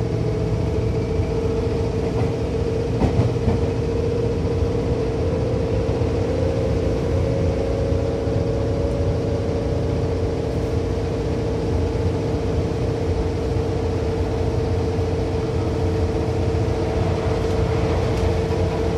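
Seibu 2000 series electric train running between stations, heard from inside the car: a steady rumble of wheels on rail with a steady whine from the traction motors and gears. The whine rises a little in pitch about a third of the way in. There is one brief clack about three seconds in.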